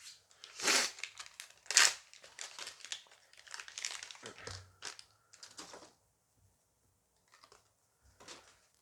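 Dice Masters booster pack wrapper being torn open and crinkled, with two loud tearing rips in the first two seconds and then a run of smaller crinkles that die away after about six seconds.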